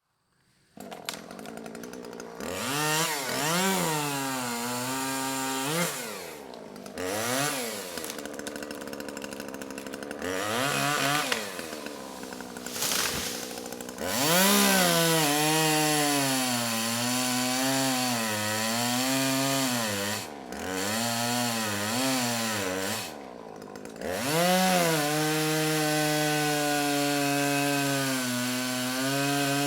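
Two-stroke chainsaw revved up and down several times with brief drops and pauses. In the second half it runs at high revs, its pitch sagging and recovering as it bites into the wood of small trees, and near the end it holds a steady high whine.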